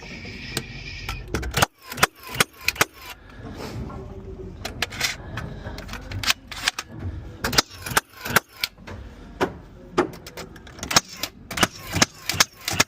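A string of sharp, irregular knocks and bangs from framing work on a wooden wall, coming faster near the end.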